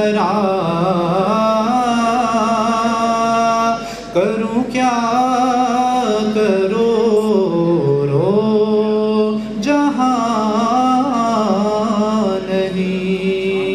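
A solo male voice reciting a naat, an Urdu devotional poem, in long drawn-out wavering notes, with two short pauses about four and ten seconds in.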